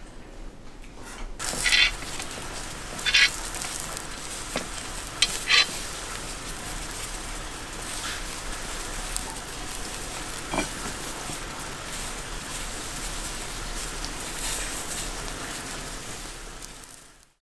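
Skewered wild boar meat sizzling over hot charcoal: a steady hiss with a few sharp crackles of fat in the first several seconds. It starts about a second in and fades out at the end.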